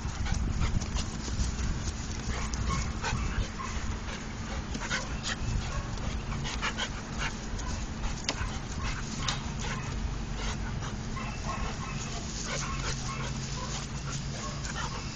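Two large dogs play-fighting at close range: dog panting and short dog noises mixed with many brief, irregular scuffling clicks, over a steady low rumble.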